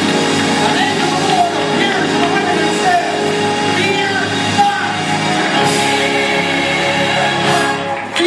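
Church choir singing with instrumental accompaniment, a steady full sound with no break.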